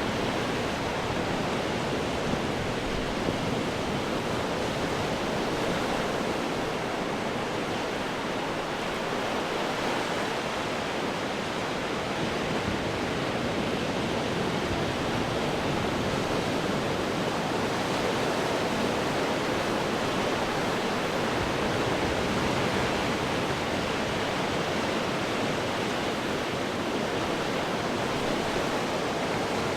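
Ocean waves breaking on rocks: a continuous rush of surf that swells slightly in level now and then, without any single distinct crash standing out.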